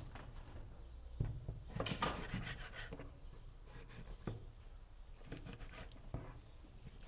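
Knife cutting raw chicken wings on a plastic cutting board, with a handful of irregular knocks of the blade against the board and short scraping sounds.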